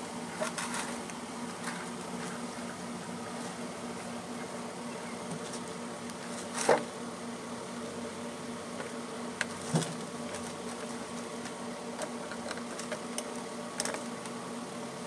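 A steady buzzing hum, with scattered clicks and knocks as the plastic fittings and PVC pipe connections of a Fleck water-treatment control valve head are handled. The loudest knock comes about six and a half seconds in, another near ten seconds.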